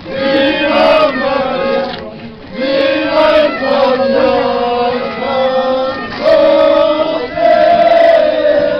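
A group of men and women singing a devotional song together in unison, in long held notes with short breaks between phrases.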